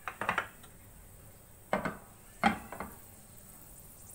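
Kitchenware knocking and clinking against a cooking pan in three short bursts, the loudest about two and a half seconds in.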